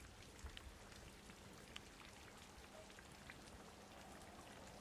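Faint steady rain, with scattered small drop ticks.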